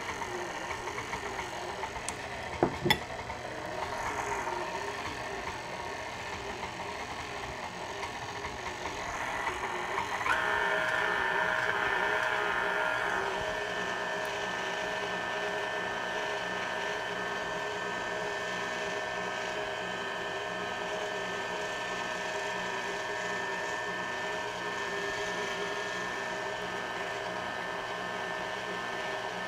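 KitchenAid Classic stand mixer running, its flat beater mixing pound cake batter in the steel bowl, with a steady motor whine. About ten seconds in, a higher whine comes in and it gets louder. Two sharp taps about three seconds in.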